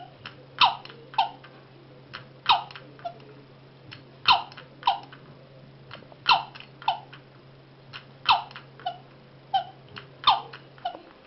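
Antique doll's toy rocking chair rocking and making its sound: a short squeaky cry that falls in pitch on each swing, about every two seconds, each louder cry followed by a fainter one. A faint steady low hum underneath stops near the end.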